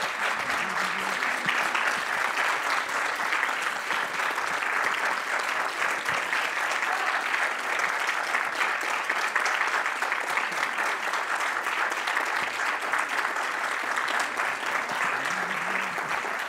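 Theatre audience applauding, a steady, dense clapping that carries on without a break.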